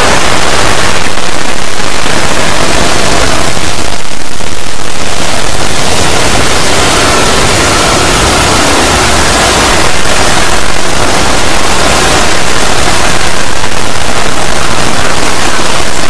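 Extremely loud, heavily clipped static-like noise filling the whole range without a break: a soundtrack distorted beyond recognition by round after round of added noise effects.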